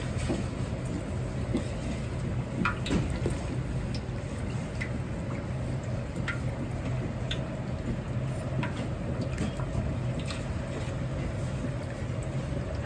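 Battered chicken pieces deep-frying in a wok of hot oil, bubbling and sizzling with scattered sharp pops every second or two, over a steady low hum of kitchen equipment.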